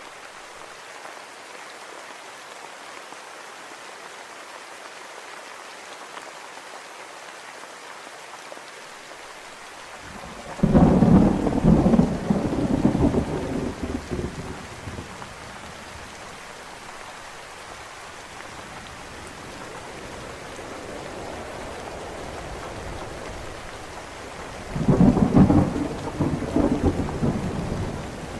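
Steady rain falling, with two rolls of thunder: one rumbles in about ten seconds in and lasts a few seconds, and another comes near the end.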